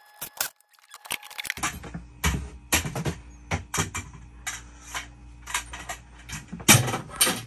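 Metal support braces being pulled out and handled: irregular clanks, taps and rattles of metal poles and tools, over a low steady hum that starts about a second and a half in.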